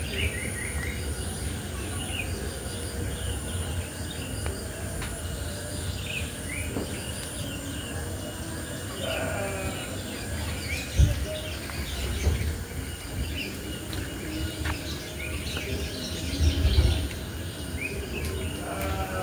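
Forest ambience: a steady high-pitched insect buzz pulsing a few times a second, with scattered bird chirps and calls over it. Low rumbling and two louder bumps, one about halfway through and one near the end, come from the hand-held microphone being moved.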